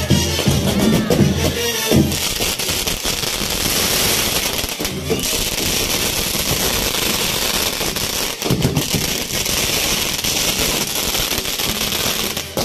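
A castillo firework tower burning, with a dense, continuous crackle of small pops from its fountains and spinning wheels. Music plays underneath, most audible near the start and again about eight seconds in.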